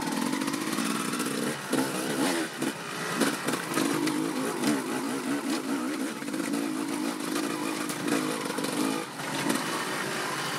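Dirt bike engine running while being ridden, its revs rising and falling unevenly along the trail.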